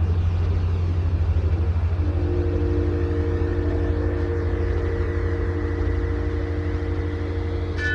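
Deep, pulsing rumble with a hiss: a 'sound of Earth' made from electromagnetic vibrations. About two seconds in, a chord of steady low drone tones joins it, and right at the end a high, bell-like ringing is struck.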